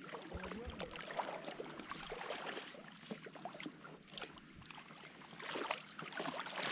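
Faint water sloshing and small splashes from a seine net and its ropes being hauled by hand through shallow water, with people wading, in short irregular bursts.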